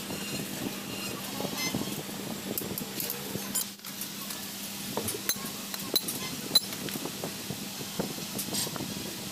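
Irregular sharp metal clinks and taps as rivets and tools are handled on a clutch disc resting on a steel stand, over a steady low hum.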